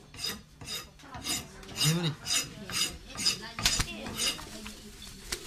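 A white chicken beating its wings while held in the hand, giving a quick series of sharp rustling flaps, about two or three a second.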